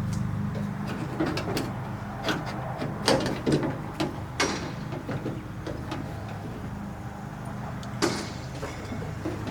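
Clicks and clunks of metal parts inside a pickup truck's door shell as a loose door-latch rod is fished back into place: a cluster of short knocks in the first half and one sharper knock about eight seconds in, over a steady low hum.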